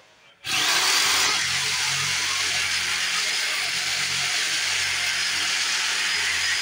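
Corded jigsaw starting up about half a second in and cutting steadily through a board.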